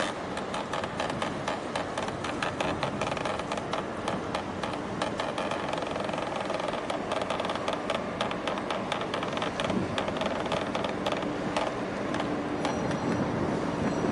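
A motor engine running steadily with a fast, irregular clattering rattle over it.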